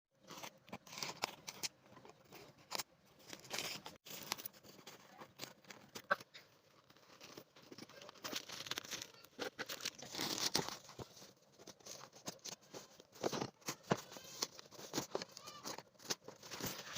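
Ring light packaging being opened by hand: irregular tearing, crinkling and rustling of the wrapping, with scattered sharp clicks.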